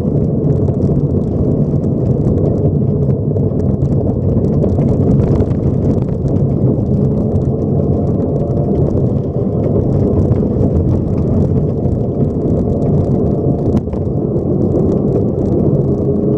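A Subaru rally car, heard from inside the cabin, driving hard on a gravel road. The engine runs under load over a steady, loud rumble of tyres and gravel, with scattered small clicks and knocks throughout.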